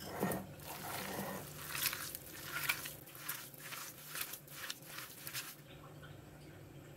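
A bare hand kneading raw spiced minced meat for kebabs in a glass bowl: a run of short squishing strokes, about two a second, that stops about five and a half seconds in.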